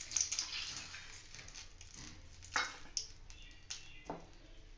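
A steel ladle clinking a few times against an aluminium karai and a steel bowl as hot frying oil is ladled out, with a light hiss from the oil at first.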